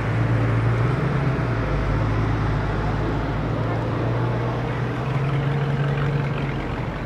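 Steady low engine drone that shifts slightly in pitch, over a general hum of outdoor background noise.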